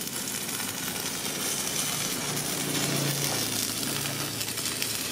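Stick (manual arc) welding: the electrode's arc crackling and sizzling steadily as it burns down, laying a weld on a square steel tube frame.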